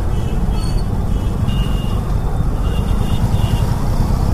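Motorcycle engine running at low speed in slow traffic, a steady low rumble heard from the rider's seat. A few faint short beeps sound in the background.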